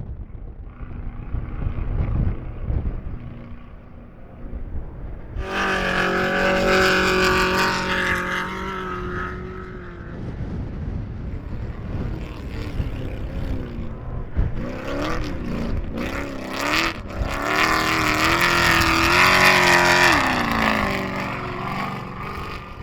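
Off-road race vehicle engines running hard, twice. The first, about five seconds in, holds a high steady pitch for several seconds. The second, from about fourteen seconds, rises and falls in pitch as it revs, then drops off at about twenty seconds. A low rumble runs underneath.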